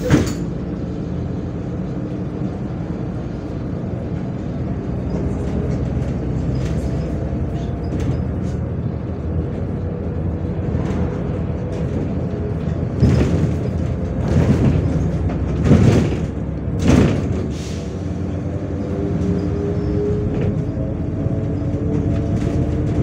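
MAZ 105.465 city bus heard from inside the passenger cabin while driving: the engine and drivetrain run with a steady drone. Several loud knocks and rattles come between about thirteen and seventeen seconds in, and the engine note rises a little near the end.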